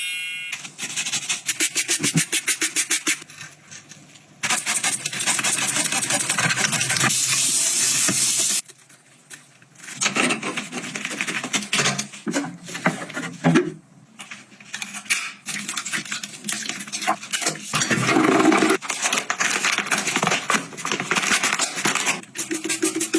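Household items being handled: a run of clicks, knocks and scrapes, with a steady hiss lasting a few seconds in the middle.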